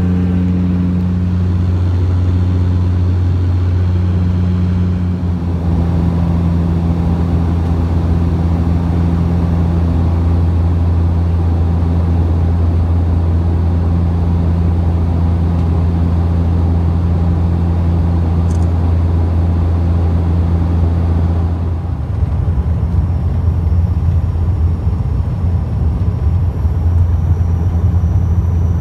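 Steady low drone of a travelling vehicle heard from inside: a deep, constant hum with a few steady tones above it. It turns rougher and less even about three quarters of the way through.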